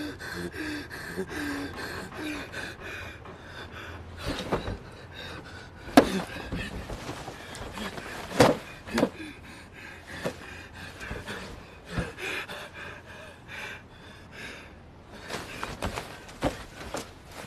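A man gasping and panting for breath, exhausted after a fistfight, over a steady hiss. A few sharp impacts cut in, the loudest about six and eight and a half seconds in.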